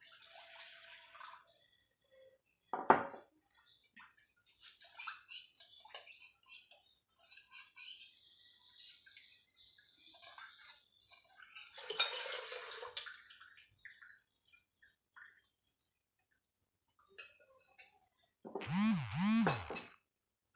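Steel spoon clinking and scraping in an aluminium pot while thin yogurt and gram-flour batter is stirred and poured in from a glass bowl. There is one sharp clink about three seconds in, a stretch of pouring and stirring noise about midway, and a louder, rushing noise near the end.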